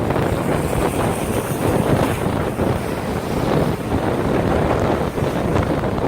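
Gale-force wind buffeting the microphone in uneven gusts, over the wash of storm surf.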